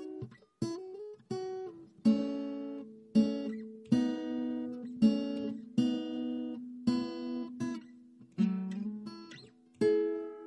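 Cutaway acoustic guitar played solo, chords struck about once a second and left to ring out, with a few short sliding notes.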